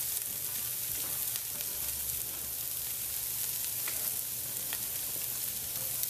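Roux and tomato paste frying in a pot, a steady sizzle with a few faint crackling pops. It is browning down to a dark fond on the bottom of the pot, ready to be deglazed.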